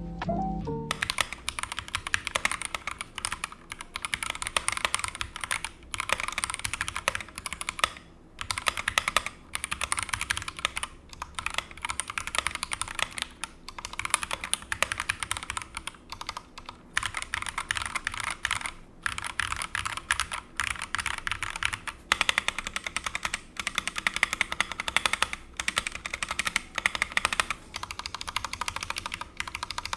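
Akko 3068S mechanical keyboard being typed on quickly: a dense clatter of key clicks in runs with brief pauses between them.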